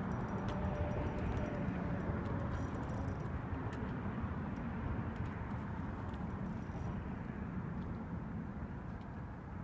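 Steady low rumble of passing road traffic, with two brief hisses partway through.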